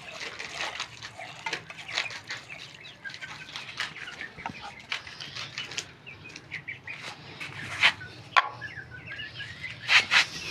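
A hand mixing soaked roti pieces with chicken feed in an aluminium pot, making small rustling, squelching clicks, with chickens clucking and chirping around it. A few louder sharp clicks come near the end.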